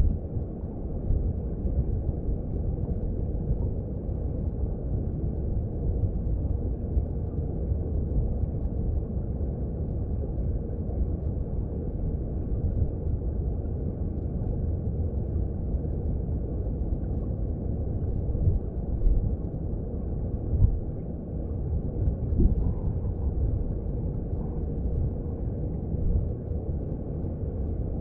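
Mountain stream water heard underwater: a steady low rush of flowing water, with a few brief louder surges a little past the middle.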